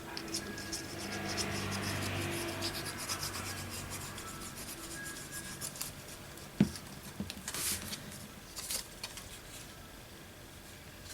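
Paper being rubbed and handled by hand, a page smoothed down, with scattered light ticks and a single sharp knock about six and a half seconds in.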